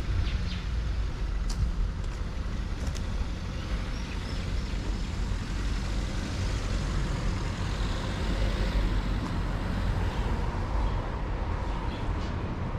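Steady low rumble of outdoor city background noise, with a few faint clicks and brief faint high chirps.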